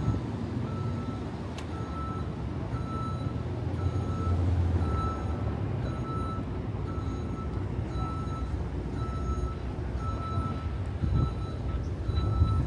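Backup alarm beeping steadily, about one short high beep a second, over the low rumble of street traffic.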